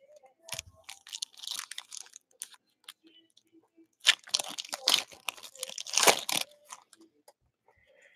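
A Prizm basketball retail pack's foil wrapper crinkling as it is handled, then tearing open with a dense run of crackling from about four to six and a half seconds in.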